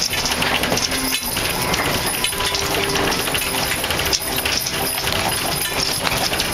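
A mule-drawn covered wagon rolling on a dirt road: a steady rattle full of small clicks, with the metal harness hardware jingling and the team's hooves clopping.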